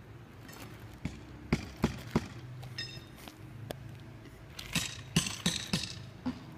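Sharp clicks and knocks from hand work on an asphalt-shingle roof: three quick ones a couple of seconds in, then a denser cluster about five seconds in.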